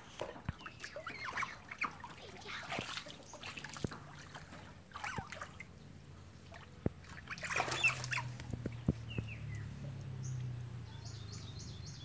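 Asian small-clawed otters giving short, high squeaky chirps on and off while water splashes and sloshes around them at the pool edge, with a quick run of short high chirps near the end.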